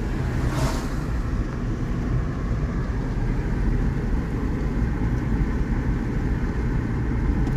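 Steady low outdoor rumble of background noise, with a brief rustle about half a second in.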